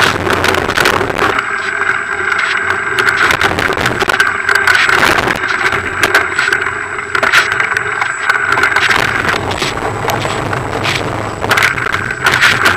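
Bike rolling over a wet, stony dirt trail: continuous tyre and frame rattle with many small knocks as the wheel hits stones and ruts.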